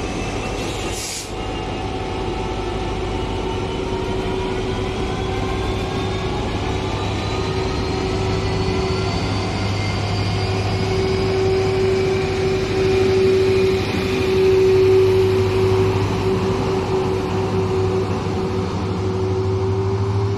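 Class 66 diesel locomotive, with its EMD 12-cylinder two-stroke engine, working under power as it pulls a train away, its pitch and whine rising as it accelerates. There is a short click about a second in.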